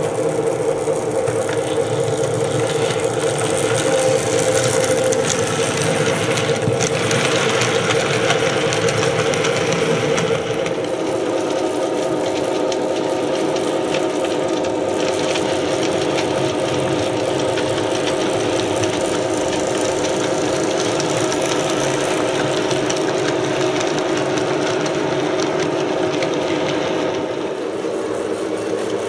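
Model diesel locomotive running along the track with a steady engine-like drone, dropping a little in pitch and level about ten seconds in.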